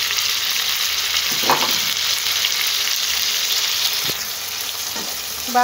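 Chilli chicken with capsicum and onion sizzling in a wok while a spatula stirs it. The hiss eases slightly about four seconds in.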